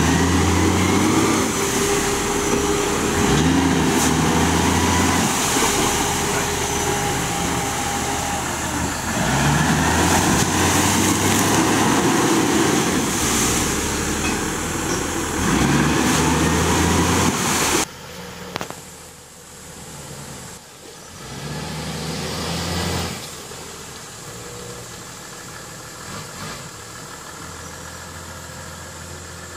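Toyota Land Cruiser 80-series straight-six engine revving hard in repeated bursts as its 37-inch mud tyres spin in deep mud, trying to drive out. About eighteen seconds in, the sound drops abruptly to a quieter idle, with one short rev a few seconds later.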